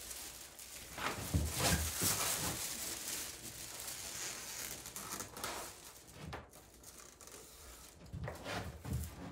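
Thin mylar emergency-blanket film crinkling and rustling as it is handled, laid down and smoothed flat by hand onto a panel, in uneven bursts.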